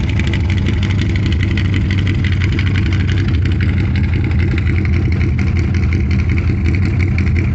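Car engine idling steadily after a cold start in sub-zero weather, being left to warm up.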